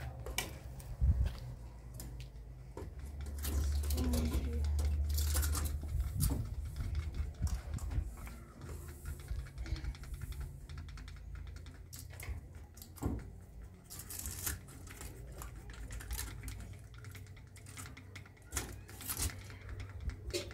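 Light, irregular clicking and tapping of a spoon against a small glass as paint is stirred and mixed, over a low rumble that is strongest about three to six seconds in.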